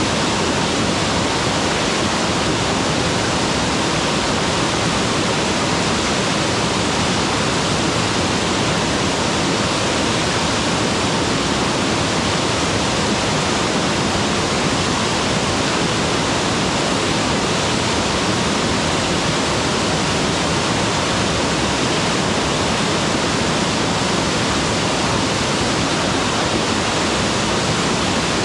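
Mountain waterfall pouring steadily: a loud, even rush of falling water with no breaks or changes.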